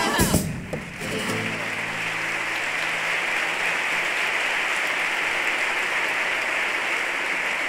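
The comparsa's music stops abruptly about half a second in. The theatre audience then applauds steadily, with a low note lingering under the first couple of seconds of the clapping.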